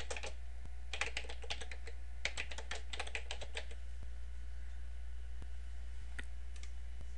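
Typing on a computer keyboard: three quick runs of keystrokes in the first few seconds, then a few single clicks near the end, over a steady low hum.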